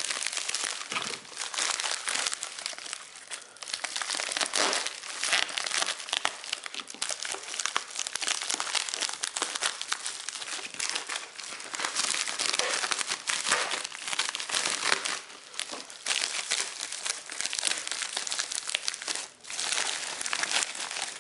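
White plastic shipping mailer crinkling and rustling in the hands as it is opened and the packaged cases are pulled out, a dense crackle of small clicks that pauses briefly twice near the end.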